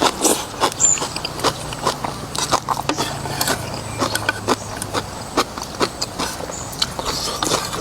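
Close-up eating sounds of a person chewing noodles and beef: a run of irregular sharp, wet mouth clicks, a few each second.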